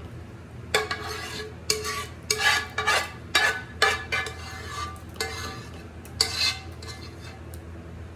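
A utensil scraping food out of a cooking pan in a dozen or so short strokes, each with a slight ringing tone.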